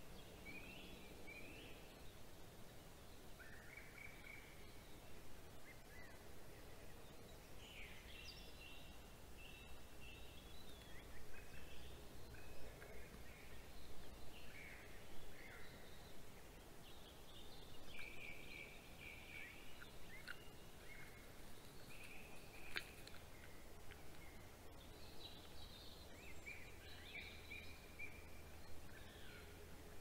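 Several birds singing in the pre-dawn chorus: short phrases and trills from different birds overlapping, busiest in the middle, over a faint steady hiss and a low hum.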